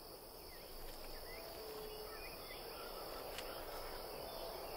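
Faint, steady high insect chirring, like crickets, with a few brief faint chirps over it in the first couple of seconds.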